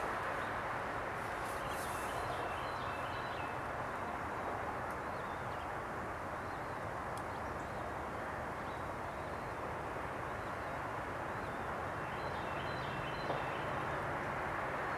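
Steady distant road-traffic roar, an even wash of noise that holds at the same level throughout. Faint high bird chirps come through twice, about two seconds in and again about twelve seconds in.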